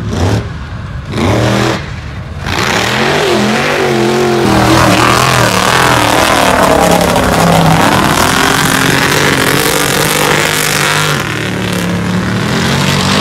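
Pickup truck's engine revving hard as it ploughs through a mud pit. The pitch swings up and down, then drops and climbs back over several seconds.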